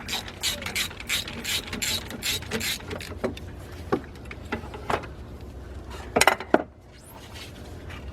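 3/8-inch drive ratchet on a long extension clicking as it turns a spark plug loose, a quick run of about three clicks a second for the first few seconds, then slower scattered clicks, with a louder clatter about six seconds in.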